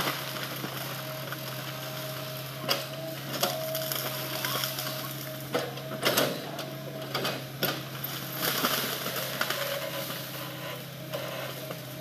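Hitachi hydraulic excavator's diesel engine running steadily with a constant hydraulic whine while it works a felled log. Several sharp knocks and cracks come through, the loudest about six seconds in.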